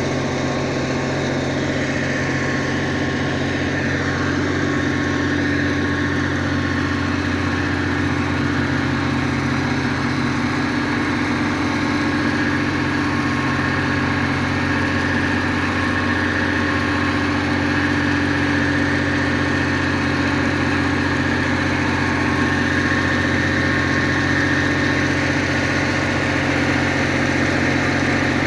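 Welding equipment running with a steady, even hum and buzz that does not change.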